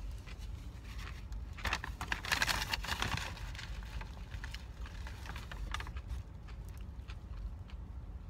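Close-up eating of a lettuce-wrapped burger: chewing and crunching of crisp lettuce, with a louder crackling burst a couple of seconds in, over a low steady hum.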